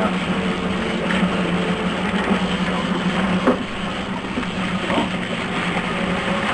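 Boat engine running with a steady low hum, with a few short knocks.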